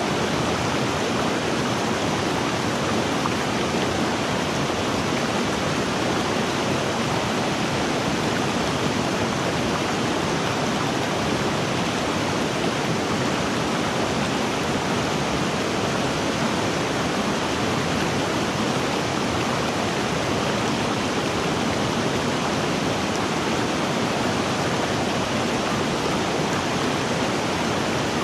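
River water flowing in a steady, even wash of noise that never breaks or changes.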